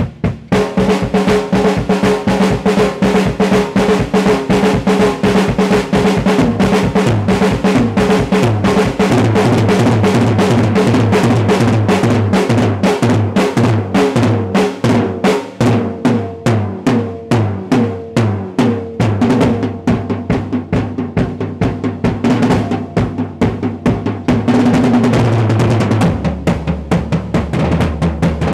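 Drum kit solo: a fast, unbroken run of stick strokes on snare and toms with the bass drum, the toms ringing at their own pitches as the fills move around the kit.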